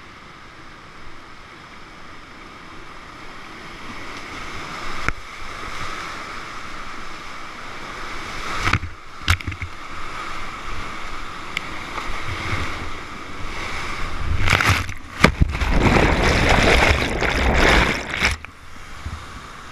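Whitewater rushing past a kayak, growing louder as it runs the rapid into a waterfall, with a few sharp knocks. Near the end comes the loudest churning of water as the kayak plunges into the foam, which cuts off abruptly before a steadier, quieter rush returns.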